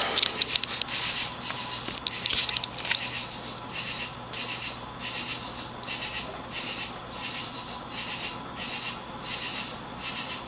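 HRS cast-iron spinner-motor ceiling fan running at medium-high speed: a rhythmic whoosh of air about twice a second over a steady low motor hum, after several sharp clicks in the first three seconds. Its bearings have a little sound starting to develop, which the owner calls average for a fan this age.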